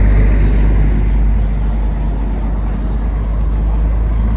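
Road traffic going past close by: a steady rumble of car engines and tyres that swells as a vehicle passes at the start and eases off.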